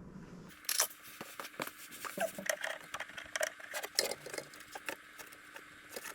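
Irregular light clicks, taps and small rattles of hands handling small hard parts, starting about half a second in and going on unevenly throughout.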